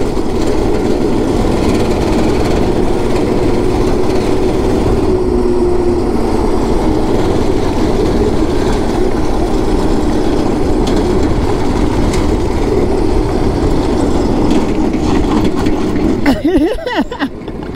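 Small single-cylinder 126cc, 5 hp go-kart engine running steadily at speed, heard from the driver's seat over a rough, noisy rumble. The engine note shifts about sixteen seconds in.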